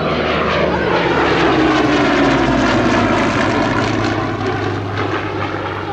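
Hawker Hurricane Mk.I's Rolls-Royce Merlin V12 engine and propeller running loudly as the fighter flies past overhead, the note sliding down in pitch about two seconds in as it goes by.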